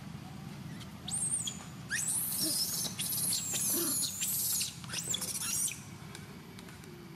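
Young long-tailed macaque screaming in distress: a run of shrill, high squeals that rise and fall in pitch, starting about a second in and stopping near six seconds.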